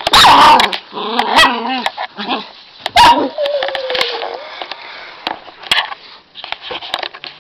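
Young puppy barking and yipping in play, with a drawn-out falling whine about three seconds in and a few knocks.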